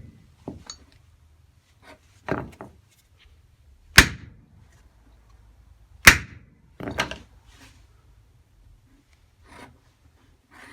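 Big hammer striking the ram of a hammer-type battery cable crimping tool resting on a block of wood, crimping a terminal onto the cable: two hard blows about two seconds apart near the middle, with lighter knocks and taps around them.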